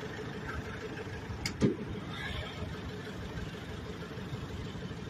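Steady vehicle engine hum in the street, with one brief louder sound about a second and a half in.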